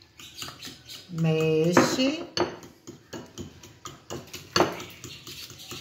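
A metal fork clinking against a glass bowl in many quick, irregular clinks as it beats milk into eggs.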